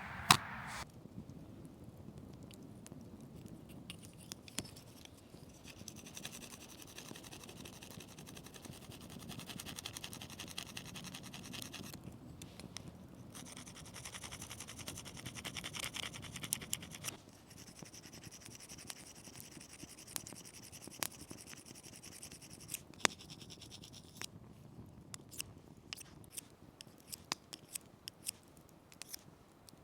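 Repeated fine scraping strokes in stretches of several seconds, with scattered sharp clicks and taps and one loud click right at the start.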